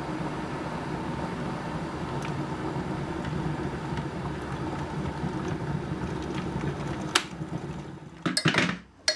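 A steady mechanical hum, even in level and pitch, that fades out about eight seconds in; a sharp click comes shortly before it ends, and a brief clatter follows near the end.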